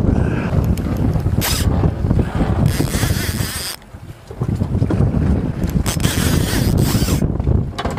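Wind buffeting the microphone: a loud, heavy low rumble that dips out briefly about four seconds in.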